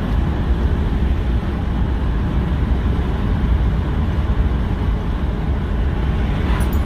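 Wind buffeting the microphone at the open window of a moving car, over a steady low road rumble.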